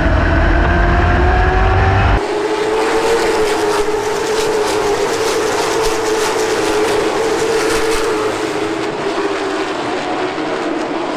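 Late model stock car's V8 engine heard from inside the car, running hard with its pitch rising slightly, then holding steady. About two seconds in, the deep rumble drops away abruptly and a dense rattling carries on over the engine.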